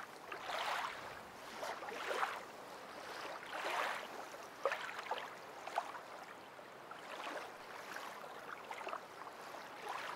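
Water lapping faintly: a soft wash that swells and ebbs about every second and a half, with a few light clicks.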